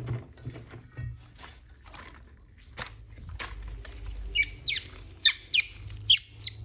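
A run of short, high squeaks, each falling in pitch, about two to three a second in the second half, after a few light taps and clicks.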